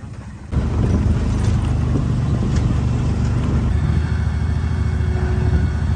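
Off-road vehicle engine idling close by: a loud, steady low rumble that starts abruptly about half a second in.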